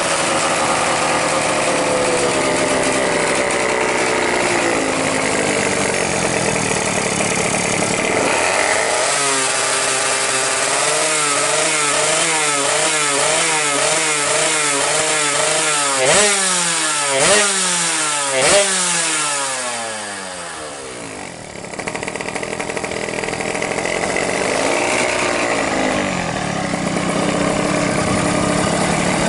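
Yamaha F1ZR's 110cc two-stroke single-cylinder engine, fitted with a large 34 mm carburetor and an expansion-chamber exhaust, running on a stand and being revved over and over. Its pitch climbs and falls in quick throttle blips, with three sharp blips in the middle. The revs then sag for a couple of seconds before it picks back up and runs on steadily.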